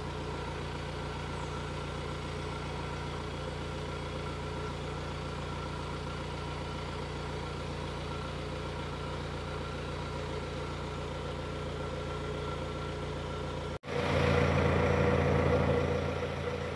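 Kia Sorento's 2.2-litre four-cylinder diesel idling steadily at about 880 rpm during a forced DPF regeneration started from a scan tool. About 14 seconds in the sound cuts out for an instant and comes back louder and fuller.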